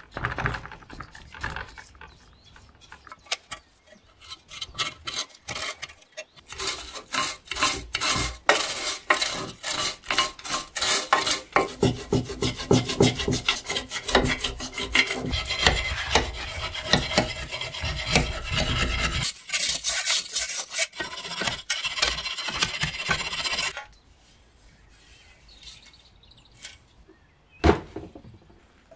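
Stiff hand brush scrubbing rust and grime off the rusted metal parts of an antique kerosene stove: rapid back-and-forth scraping strokes that become denser and louder about six seconds in and stop abruptly a few seconds before the end. A single sharp knock follows near the end.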